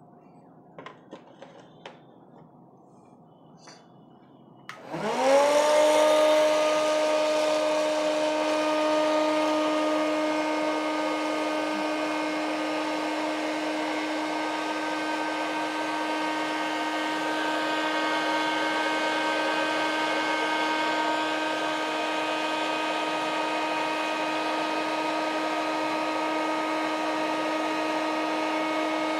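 A few light clicks, then about five seconds in an electric hot-air snack/popcorn maker switches on: its fan motor spins up within a second to a steady whine over a rush of blown hot air, and runs on steadily while roasting sun-dried vadiyalu without oil.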